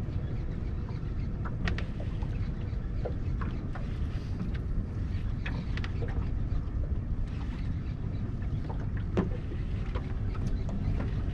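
Steady low rumble of wind and water on a small open boat, with scattered light clicks and ticks at irregular times, one a little louder near the end.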